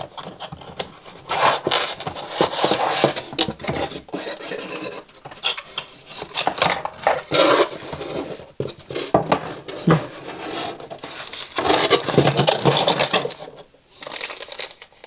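Box contents being handled and taken out: rustling packaging with light clattering of small hard parts, such as a metal rack-mounting kit and its hardware, set down on a table. Irregular, with several louder stretches of handling.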